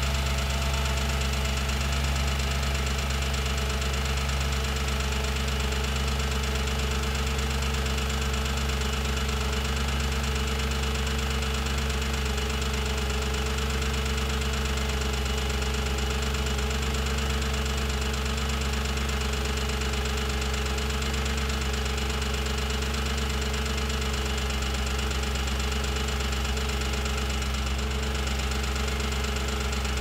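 Audi B7 S4's 4.2-litre V8 idling steadily with a loud, rapid ticking from the valve train. The tick seems to come from the rear of cylinder bank 1, loudest near the cam adjusters and cylinder 4 valve train.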